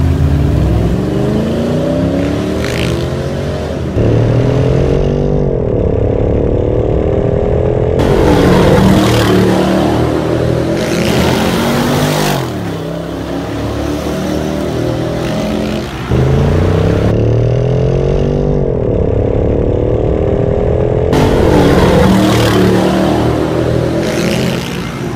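Mercedes-Benz G-Class V8 with an aftermarket cat-back exhaust and downpipe, accelerating hard several times: the engine note climbs in pitch, breaks and climbs again, over and over.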